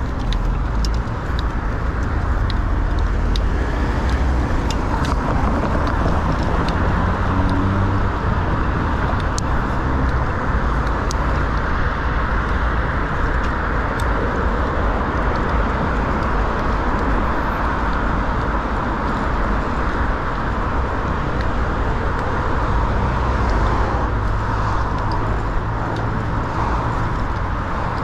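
City road traffic: cars driving past in a steady rush of noise, with one engine rising in pitch about six seconds in.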